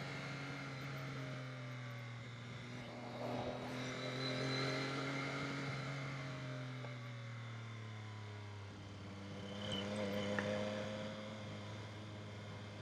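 Motorcycle engine running under way, its note sinking slowly and dropping a step about two-thirds of the way in, with wind rush over it.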